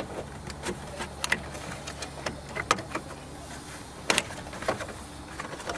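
Plastic cover over a Toyota RAV4's radiator support being pried and lifted off: scattered clicks and knocks of hard plastic, the sharpest about four seconds in, over a steady low hum.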